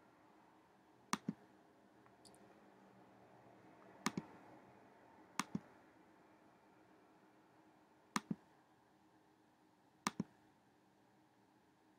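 Computer mouse button clicking five times at uneven intervals, each click a quick double snap of press and release, over faint room hum.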